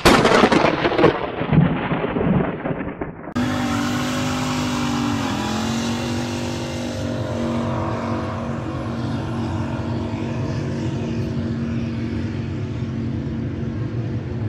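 About three seconds of loud intro audio that grows duller, then a pickup truck's engine held at steady high revs during a tyre-smoking burnout. The engine note dips briefly about two seconds after it comes in, then holds level, with the hiss of the spinning tyres underneath.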